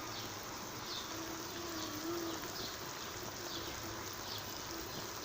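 Pot of chicken-feet broth boiling with a steady bubbling hiss. A faint, short, high chirp repeats about once a second.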